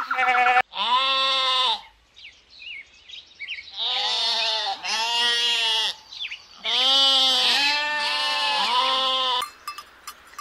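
Goat bleating, then sheep bleating: a string of drawn-out calls, each about a second long, some overlapping, with short bird chirps in a quiet gap between them.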